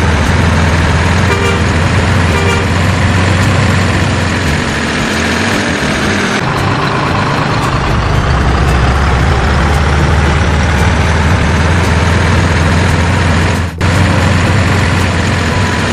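Steady, loud truck engine rumble, with two short horn toots about one and a half and two and a half seconds in. There is a brief dropout near the end.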